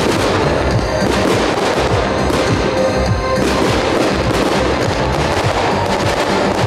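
Aerial fireworks bursting and crackling in rapid, overlapping volleys, over loud music.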